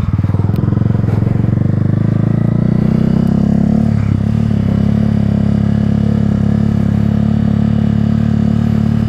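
Honda CB250 Twister's single-cylinder four-stroke engine running as the bike rolls along at low speed, heard from the rider's position; the engine note rises a little over the first few seconds, dips briefly about four seconds in, then holds steady.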